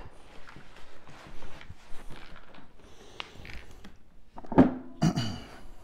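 Handling noises from a rotary carpet-cleaning floor machine, switched off, being tipped back on its wheels to get at its pad: scattered knocks, clicks and rustling. The loudest, a sharp knock with a brief voice-like sound, comes about four and a half seconds in.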